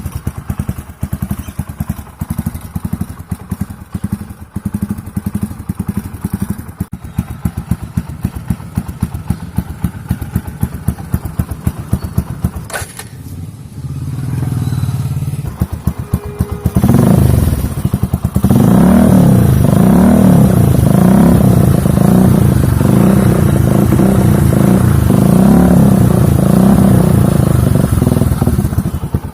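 Motorcycle with an imported short aftermarket exhaust idling with a steady, rapid pulse. About halfway through, the note drops away briefly, then the throttle is blipped again and again, the pitch rising and falling in waves, much louder than the idle.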